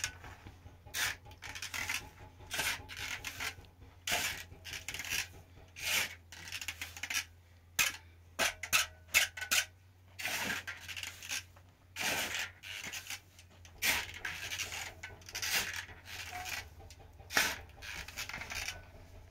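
Steel shovel scraping and scooping through a pile of sand and gravel on the floor, in repeated gritty strokes about one or two a second.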